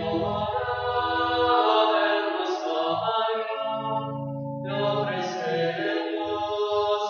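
Hymn music: voices singing long held chords, with a short break in the phrase about three seconds in.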